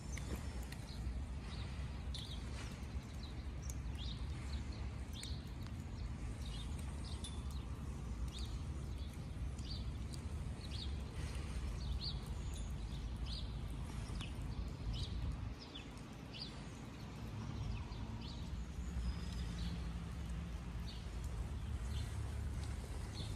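Walking footsteps on wet ground, a short crisp step about one and a half times a second, over a steady low rumble.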